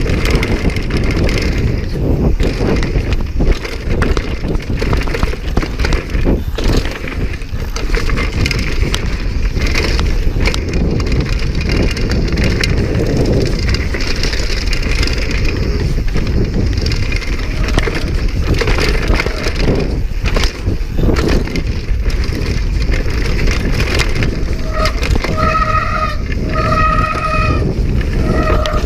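Downhill mountain bike riding fast over a rough, bumpy trail: a constant rumble of tyres on dirt, with the bike rattling and knocking over the bumps. A few short, high squeals come near the end.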